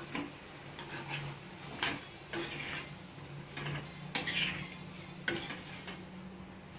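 Raw potato cubes being mixed by hand in a steel pot: irregular clicks and scrapes as the pieces knock and slide against the metal, over a faint low steady hum.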